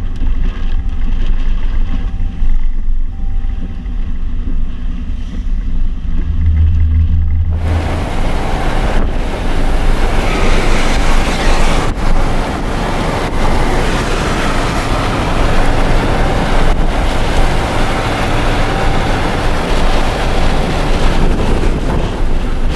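Low, steady rumble inside a chase vehicle driving in rain. About seven seconds in it gives way suddenly to loud, full-range wind noise blasting a camera probe's microphone inside a tornado.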